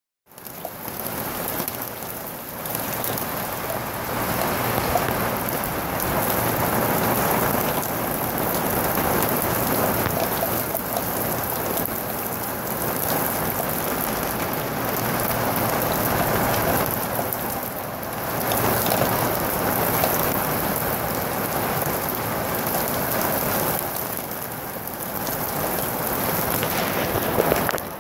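Heavy rain mixed with hail pelting a wet paved patio and puddles: a dense, steady hiss and patter that swells and eases every few seconds.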